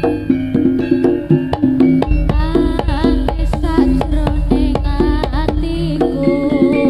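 Javanese jaranan gamelan music: a steady, brisk pattern of kendang drum strokes and struck metal keyed notes, joined about two seconds in by a wavering, pitch-bending melody line over a deep low layer.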